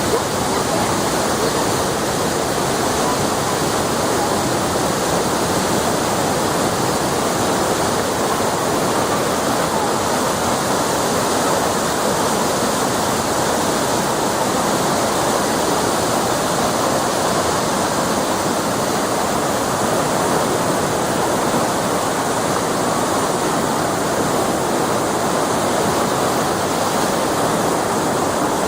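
Waterfall: a loud, steady rush of falling water, even and unbroken throughout.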